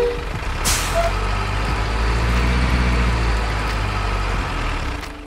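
Simulated heavy diesel truck sound from a remote-control truck: an engine running low and steady, swelling in the middle and fading near the end, with a sharp air-brake hiss just under a second in.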